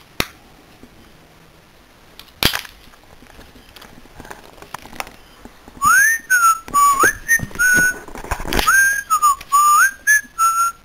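A person whistling a tune of short gliding notes, starting about halfway through, after two sharp clicks in the first few seconds.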